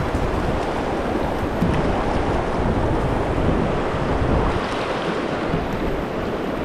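A shallow, rocky river rushing over riffles: a steady, loud rushing noise, with some wind rumble on the microphone.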